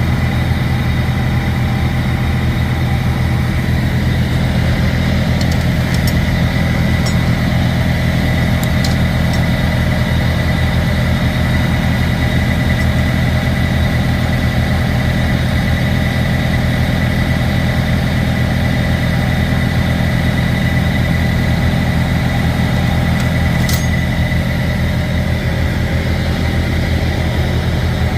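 Semi truck's diesel engine idling steadily with a thin steady whine above it, and a few faint clicks now and then.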